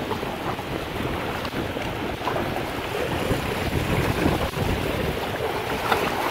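Choppy waves of the flooded reservoir splashing and washing against rocks and a concrete wall, with wind buffeting the microphone as a low rumble.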